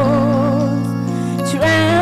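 A woman singing a slow worship song into a microphone over sustained chordal accompaniment. She holds a note with vibrato, then moves to a new note near the end.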